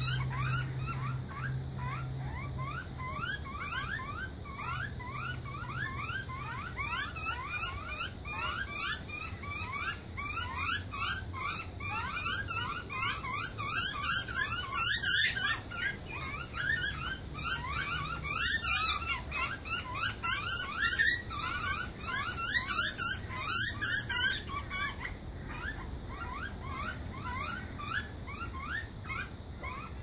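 Young butcherbirds begging for food: a continuous run of short, rising squeaky calls, several a second, with louder harsh, hissing calls between about six and twenty-four seconds in.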